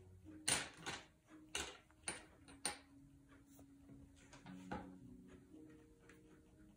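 Staedtler Pigment Liner 0.1 fine-liner pen scratching on paper in quick short strokes, about seven of them, most in the first few seconds and two more about four and a half seconds in.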